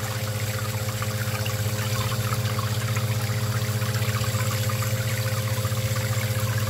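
1/4 HP Barracuda utility pump running with a steady low hum, spraying water up into upside-down beer bottles through pen-tube nozzles, with continuous splashing and trickling as the water runs back out of the bottles.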